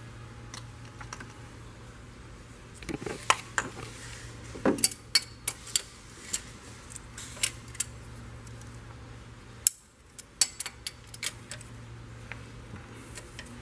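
Irregular sharp metallic clicks and clinks of hand tools against the camshafts and cylinder head of a Land Rover 5.0-litre V8 as the cams are turned and set for the cam locks, over a steady low hum.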